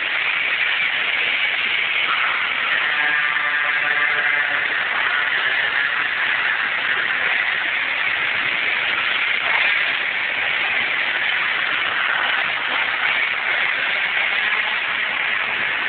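MBK Nitro 50 cc two-stroke scooter fitted with a Malossi MHR tuning kit, running hard at high revs around an indoor track, with no letup. Its engine note stands out more clearly, shifting in pitch, for a couple of seconds about three seconds in.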